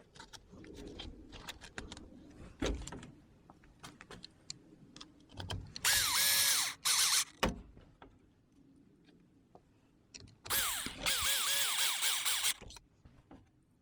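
An RC crawler's brushless motor and gear drivetrain are run in two bursts after power-up, with a whine that rises and falls repeatedly as the throttle is blipped. Before them come light clicks of handling.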